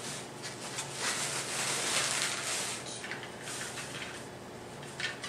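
Clear plastic wrap and cellophane crinkling and rustling as hands pull at it on a wrapped wheel, loudest from about a second to three seconds in, then softer.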